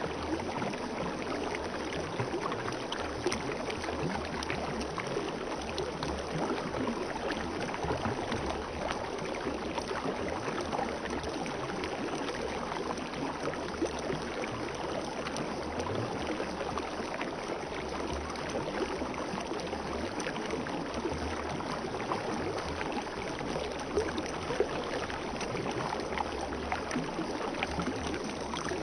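Spring water flowing and splashing steadily, a continuous babbling with small gurgles and splashes.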